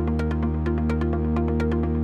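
Electronic background music with a steady beat of sharp ticks over held bass notes.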